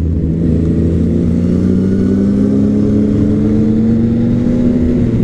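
Yamaha MT-09 inline-three engine pulling under steady acceleration, its pitch rising slowly and evenly as the motorcycle gains speed.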